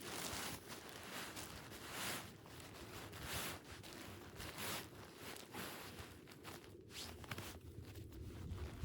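Footsteps in snow: a soft crunching swish every second or so.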